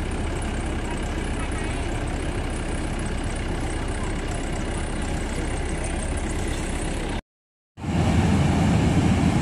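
Maxxi NDR 102L rice combine harvester running steadily close by. Near the end the sound breaks off for about half a second and comes back louder and deeper.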